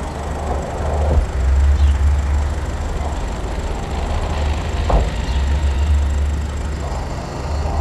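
Manitou telehandler's diesel engine running with a steady low rumble, with two short knocks, about a second in and near five seconds.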